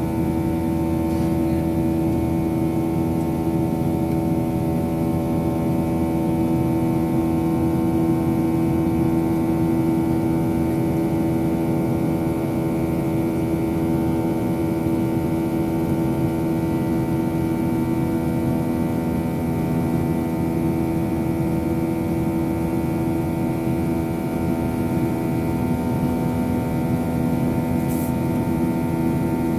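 Boeing 737-800 jet engines heard inside the passenger cabin in flight: a steady, loud drone with several steady humming tones over a low rumble.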